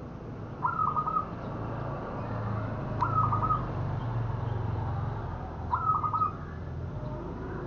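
Zebra dove (perkutut) giving its short staccato cooing song three times, roughly every two and a half seconds. A low steady hum runs underneath.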